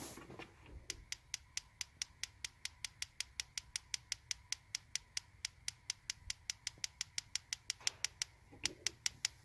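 Weber Baby Q gas barbecue's igniter clicking rapidly and evenly, about five sparks a second, without the burner lighting yet: the gas has not yet filled the new, unused supply line.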